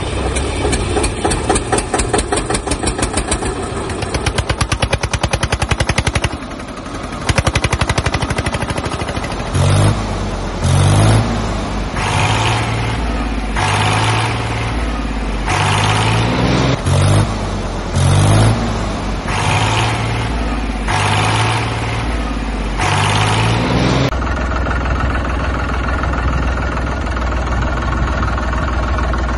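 Tractor engines running. First a mini tractor's small engine chugs. Then a loud pattern repeats about once a second, its pitch stepping up and down, and from about 24 seconds in a large diesel tractor's engine runs steadily.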